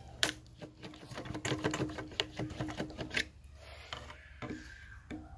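A screwdriver prying and scraping at the lid seam and keyhole plate of a steel Sentry home safe: a rapid run of metallic clicks and scrapes for about three seconds, then a few quieter knocks.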